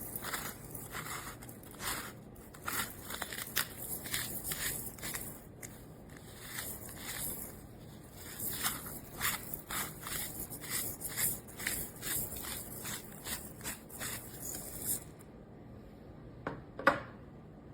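A hand-twisted spice grinder grinding, with a rapid, irregular crunching and scraping that stops about three seconds before the end. A single sharp click follows shortly before the end.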